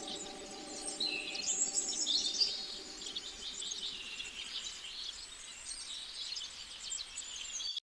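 Birds chirping and trilling in short, high calls, with a steady outdoor background; the sound cuts off abruptly just before the end.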